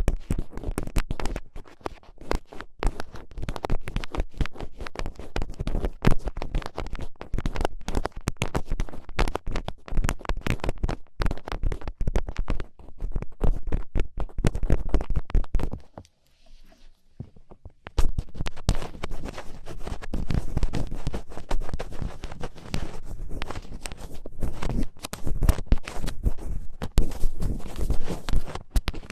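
Thin ear picks scraping and scratching inside an ear, close to the microphone: a dense run of rustling scratches and clicks that breaks off for about two seconds just past halfway, then goes on.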